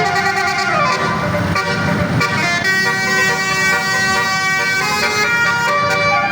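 Bus 'telolet' basuri horn, a multi-tone horn playing a tune of held chords that change every second or so, over the low rumble of the bus.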